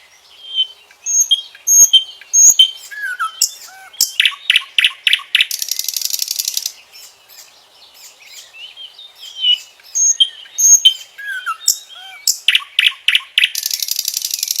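Common nightingale singing two song phrases a couple of seconds apart. Each opens with sharp whistles and short slurred notes, moves into a run of loud repeated notes, and ends in a fast rattling trill.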